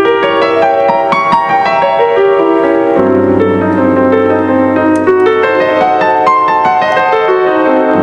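Background piano music, with a run of notes played one after another over held chords.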